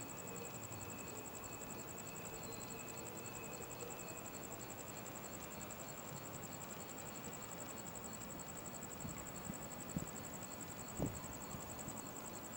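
Crickets trilling steadily in a high, fast-pulsing chirr, with a couple of faint knocks near the end.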